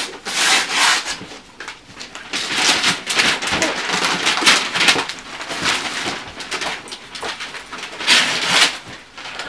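Wrapping paper tearing and crumpling as a gift is unwrapped, in several irregular rustling bursts.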